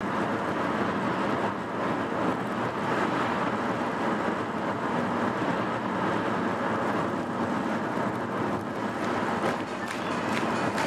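Steady road and engine noise heard inside a moving car's cabin: an even rushing hiss.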